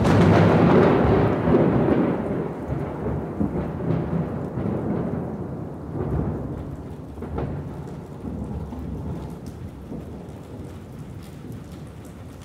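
Recorded thunderstorm sound effect: a sudden loud thunderclap at the start that rumbles on and slowly fades under steady rain.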